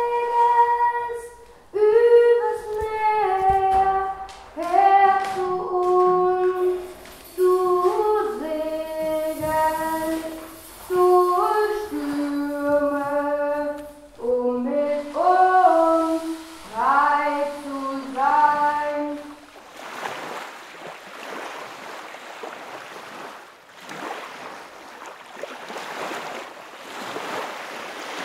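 A high solo voice sings a slow melody of held and gliding notes, with short breaks between phrases. About two-thirds of the way through the singing stops and a rushing noise takes over, swelling and fading.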